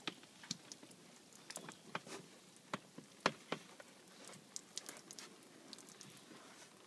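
Scattered light taps and clicks as boiled crabs, corn cobs and potatoes tumble out of a perforated steel crab-boil basket onto a plastic table, with one louder tap a little past three seconds in.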